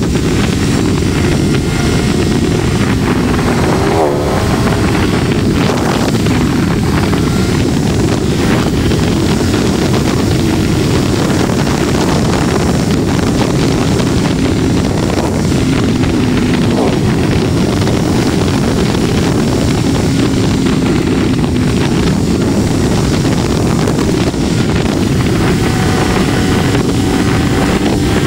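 Triumph Tiger 1200 Rally Pro's three-cylinder engine running at road speed under heavy wind rush on the microphone. Its pitch rises near the end as the bike accelerates.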